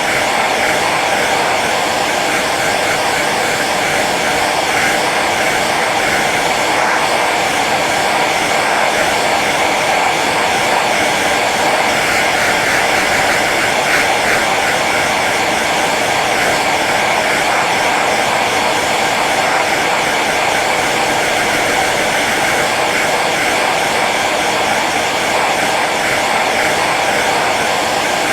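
Hair dryer running steadily on its low setting: an even, unbroken whoosh of fan and blowing air.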